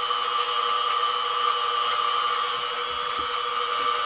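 A mini mill's spindle running steadily with no load: a constant whine. The machine is paused at a tool change, so the spindle is spinning free and not cutting.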